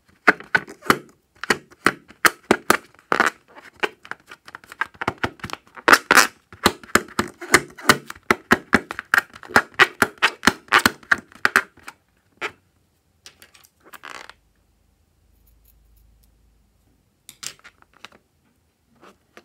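Rubber balloon squeaking under fingers as it is rubbed and squeezed: a rapid run of short squeaks for about twelve seconds, then only a few scattered squeaks.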